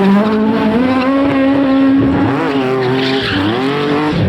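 Rally car engine revving hard, its pitch holding then dipping and climbing again, with tyres skidding on the surface. It cuts off suddenly near the end.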